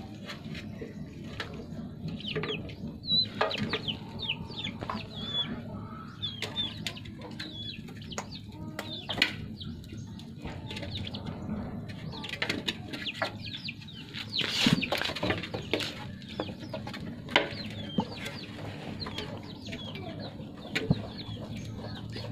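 Chicken clucking and many short, high chirps, over scattered clicks and knocks from puppies feeding and scrambling on a wide shallow pan.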